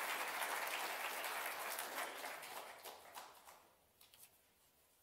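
Audience applauding. The clapping thins out and dies away over about three and a half seconds, leaving a few last claps.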